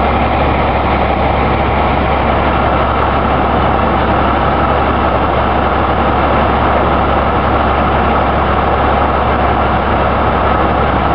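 Flatbed truck's engine idling steadily, a constant low running noise with no change in speed.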